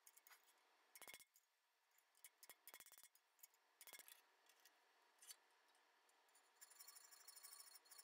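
Faint metalworking sounds on a steel lock cover plate: a few short clusters of light ticks from a small hand chisel in the first half, then, about two-thirds of the way through, a needle file starts rasping back and forth in the keyhole as it is enlarged.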